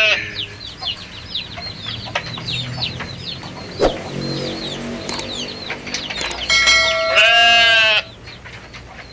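A goat bleating once, long and loud, a bit over halfway through. Throughout, small birds chirp rapidly in high, quick chirps.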